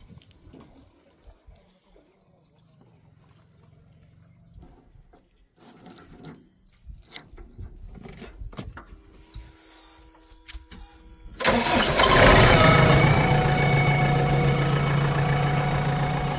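A heavy vehicle's diesel engine starting. It fires suddenly and loudly about eleven seconds in, then runs steadily. Just before, a high steady beep sounds for about two seconds, and the first part holds only scattered faint clicks and knocks.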